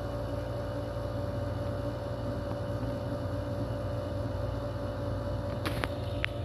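Steady machine hum with a low rumble and a faint held tone, and a few light clicks near the end.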